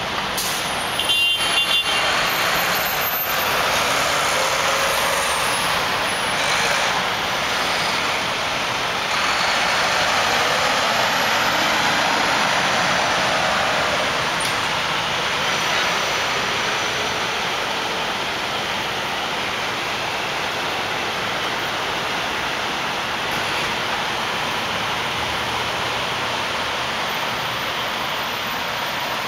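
Steady rumble of city street traffic and a truck, with a short cluster of knocks and a brief high squeak a second or two in.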